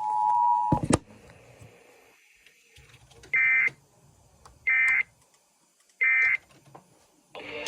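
Emergency Alert System end-of-message (EOM) data bursts: three short, identical bursts of warbling digital tones about 1.3 s apart, marking the end of an EAS test broadcast. Before them, a steady two-note tone cuts off with a click less than a second in.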